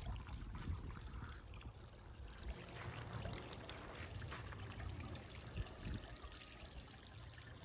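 Backyard garden waterfall, water trickling and splashing steadily over stones into its pond.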